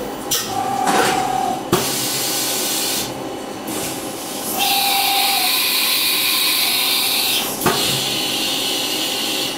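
CNC mill drilling a pilot hole with a steady hiss, a higher-pitched cutting band from about halfway in, and two sharp clicks, one near the start and one near the end.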